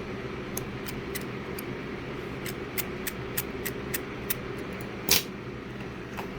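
Small clicks and taps of tools and phone parts being handled on the bench during an iPhone XS Max repair, about a dozen spread through, with one louder knock about five seconds in, over a steady background hum.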